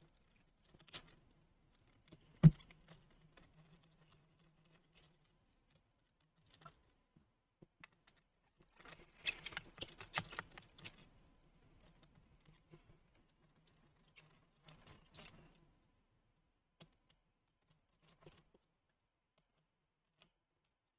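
Faint scattered clicks and taps of a small screwdriver and screws against a laptop's plastic and metal chassis as the battery screws are taken out. One sharper click comes about two and a half seconds in, a flurry of quick clicks around ten seconds in, and a smaller group a few seconds later.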